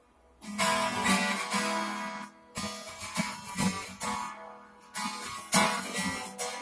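Acoustic guitar strummed in chords, starting about half a second in after a brief pause, with several hard strums that ring on between them.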